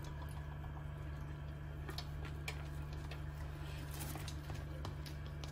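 A steady low hum with a few faint, short clicks and taps scattered through it.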